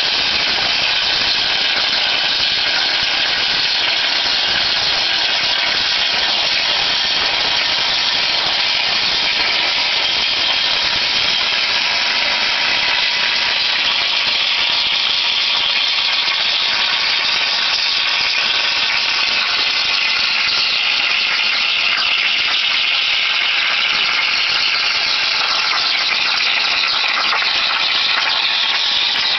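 CNC plasma torch cutting through metal plate: a loud, steady hiss of the arc and air jet, unbroken throughout.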